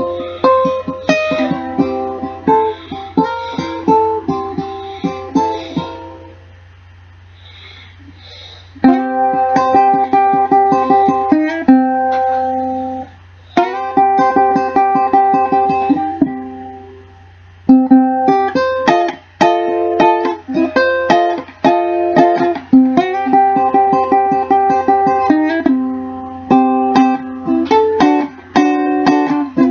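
Cocobolo tenor ukulele played solo, an instrumental run of picked notes and chords. About six seconds in the notes ring out and fade for a couple of seconds before the playing picks up again.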